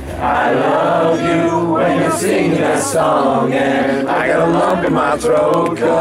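Several voices singing together at once, a group chanting a song.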